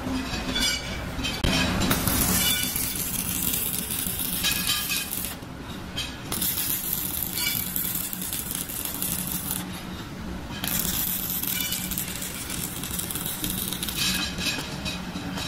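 Electric arc welding on a steel wheel rim: the arc crackles and sizzles in stretches of a few seconds, stopping briefly about five and ten seconds in before striking again. A steady low hum runs underneath.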